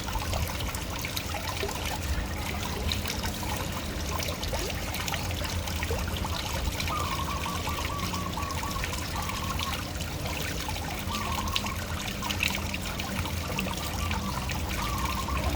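Small waterfall, water splashing and trickling steadily. A faint, wavering high tone comes and goes several times in the second half.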